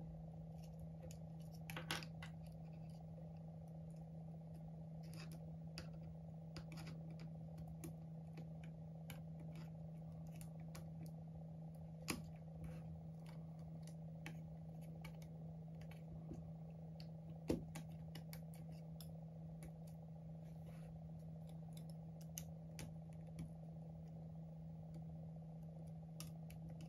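Scattered faint clicks and ticks of small tools handling an iPhone 11's internal parts during reassembly, with a few sharper clicks among them, over a steady low hum.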